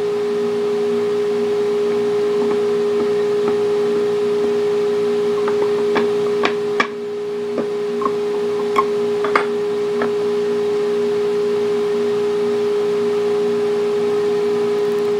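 A router motor running steadily with no load, a constant high hum. Light knocks of wooden gears being handled on the table come now and then between about six and ten seconds in.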